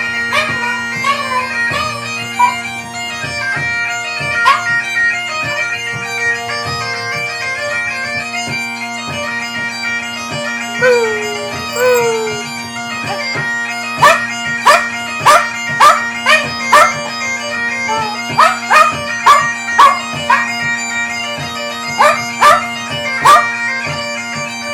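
Bagpipes playing a tune over their steady drones while a dog howls along. A few falling howls come near the middle, and in the second half a run of short, loud yelps comes about two a second, with pauses.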